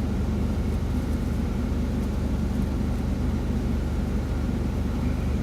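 Steady low engine hum with no change in pitch, like a semi truck's diesel engine idling.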